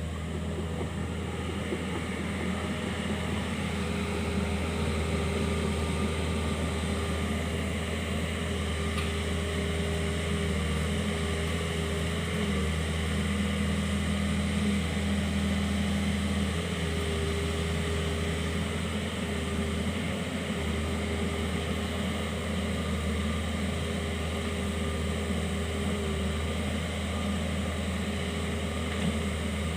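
Kobelco SK 50 P mini excavator's diesel engine running steadily under work, with a whine that comes and goes over the engine hum.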